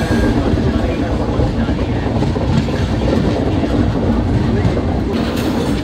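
Durgiana Express passenger train running along the track, heard from aboard: a steady rumble of wheels on rails with a light clickety-clack.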